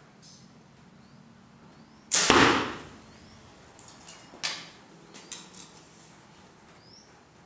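An arrow shot from a bow striking the target: one loud sharp hit about two seconds in that dies away quickly, followed by a few fainter clicks.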